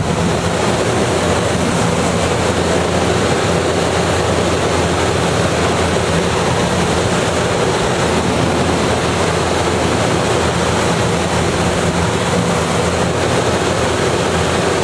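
Steady rushing airflow inside a glider cockpit on aerotow, with a faint low drone from the tow plane's engine ahead.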